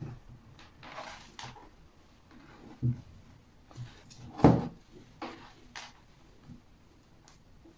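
Handling noise from a small kitchen extractor fan motor and its wire leads being moved about on a plywood board: scattered rubbing and light knocks, with a sharper knock about three seconds in and the loudest knock about four and a half seconds in.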